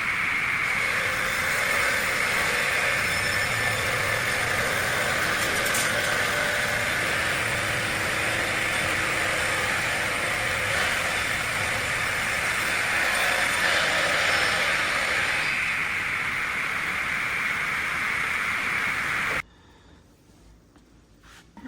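Log multi-blade rip saw running, a steady loud whine and rush of its motor-driven blade shafts. It cuts off suddenly near the end.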